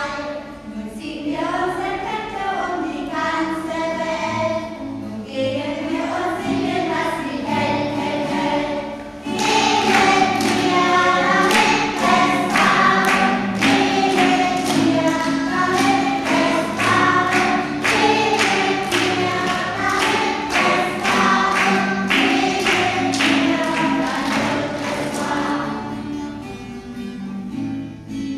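Voices singing a song together to a strummed acoustic guitar. About nine seconds in it grows louder, with steady strumming, then fades near the end.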